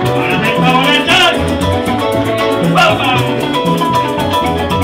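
Venezuelan llanero joropo, a golpe corrío, played live as an instrumental break between sung verses: harp melody over strummed cuatro and an upright bass line, with maracas shaking a steady fast rhythm.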